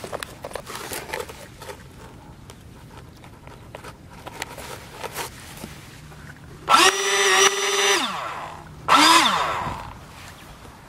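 The twin electric ducted fans of a small toy RC airliner spool up abruptly to a loud, high whine, hold it for about a second, then wind down; a shorter burst follows that rises and falls in pitch. Before this there are light rustles and clicks from the model being handled.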